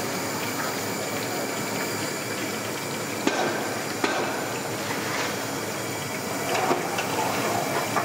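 Quail pieces deep-frying in hot oil in a kadai, a steady sizzle. A few sharp metal knocks of the slotted ladle against the pan and tray come about three and four seconds in.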